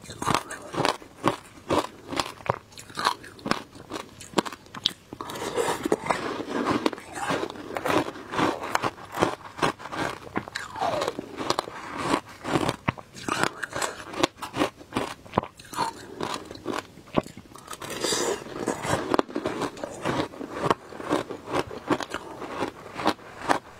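Close-up crunching of shaved ice with passion fruit being chewed: a steady run of sharp, crisp crunches, several a second.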